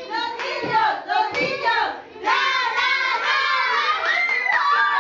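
A group of young children shouting and cheering excitedly, many high voices at once, with hand clapping, in celebration of winning first place. A man's voice briefly cuts in about a second in.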